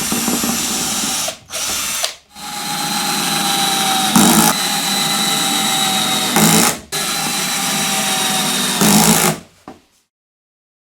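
Electric drill running in several bursts with a steady whine, briefly letting off a few times and getting louder for moments, then stopping near the end.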